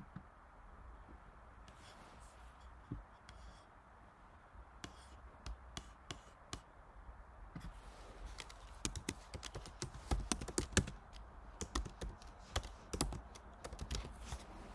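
Typing on a computer keyboard. A few scattered keystrokes and clicks come first, then a quick, dense run of keystrokes over the second half as a town name is typed into a search field.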